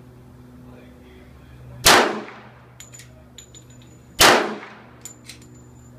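Two pistol shots from a custom 1911, a little over two seconds apart, each with a short echoing tail and followed by a few light metallic ticks.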